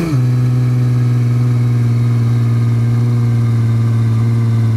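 Tractor-trailer truck engine running steadily, its pitch dropping back from a short rev right at the start.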